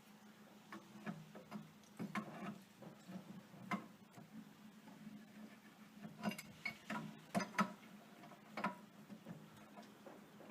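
Irregular metal clicks, knocks and scrapes as channel-lock pliers grip and turn the threaded fittings of a water pressure regulator valve, tightening them against leaks, over a low steady hum.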